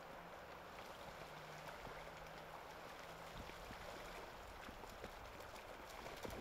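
Faint, steady noise of shallow floodwater, with a few faint ticks and a faint low hum.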